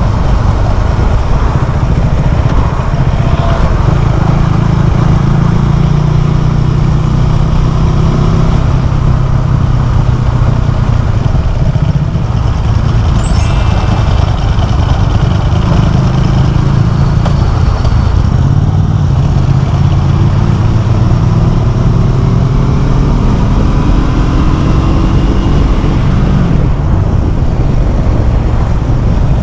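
Motorcycle engine running through a LeoVince LV One Evo carbon exhaust with the dB killer removed, as the bike is ridden. The note climbs as it accelerates toward the end, then drops back.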